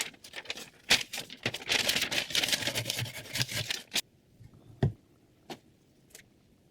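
Rapid scraping and clicking for about four seconds that cuts off abruptly, followed by three separate clicks.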